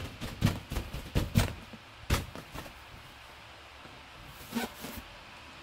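A large latex balloon being handled by a capuchin monkey: a quick run of thumps and rubbing noises for the first two and a half seconds, then a short burst again a little after four seconds.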